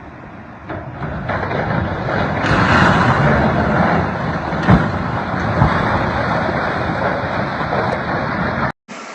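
Loud, even noise of a heavy vehicle or machine running, with two short knocks partway through; it cuts off suddenly near the end.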